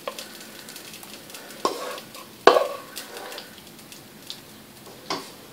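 A spoon scraping thick, wet tomato-cream sauce out of a pan into a glass baking dish, the sauce dropping in with soft wet plops. Three sharp knocks against the cookware, the loudest about two and a half seconds in.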